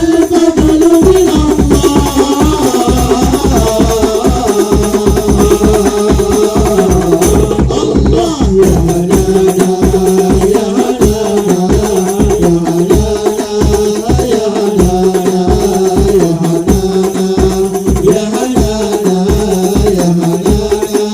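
Hadroh ensemble playing: fast, steady strokes on frame drums and a deep bass drum with jingling tambourines, under a sung melody line.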